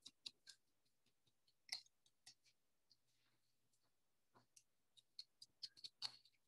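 Faint, scattered taps and clicks of an ink pad being dabbed along the edges of a paper sticker, with a quick run of taps about five seconds in.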